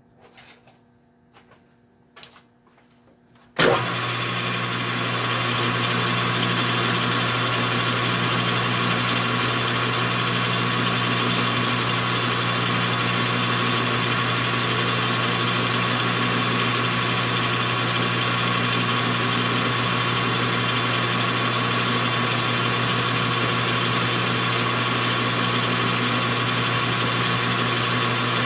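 Metal lathe switched on about three and a half seconds in, with a sudden jump in level, then running steadily with a low hum and a thin higher whine while a hand file is held against the spinning steel pin to round its end. Before it starts there are only a few faint handling clicks.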